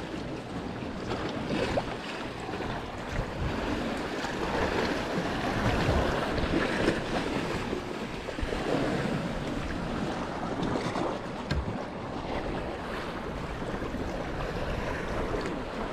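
Sea waves washing and splashing against a rocky shoreline, a continuous wash that swells and eases, with wind on the microphone.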